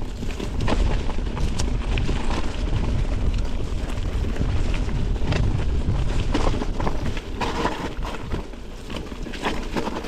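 Mountain bike riding over rough trail: a heavy low rumble on the GoPro microphone with frequent knocks and rattles from the bike.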